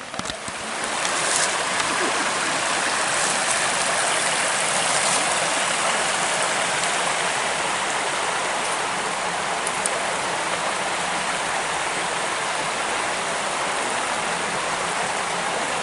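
Water of a mountain stream rushing and falling over its cascades, a steady full hiss that swells up about a second in.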